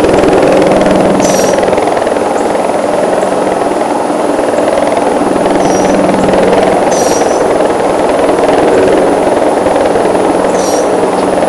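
Two ATV engines running steadily and loudly, with a few short high chirps over the top.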